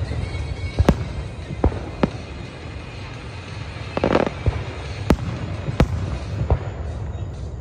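Aerial fireworks shells bursting one after another: a series of sharp booms roughly a second apart, with a short crackling burst about four seconds in, over a steady low rumble.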